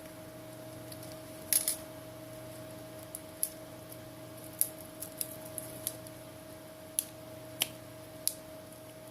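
Small sharp clicks and taps of hand tools against a Samsung Galaxy S7 being taken apart for a screen replacement, about a dozen at uneven spacing, the loudest a quick double click about one and a half seconds in. A steady faint hum runs underneath.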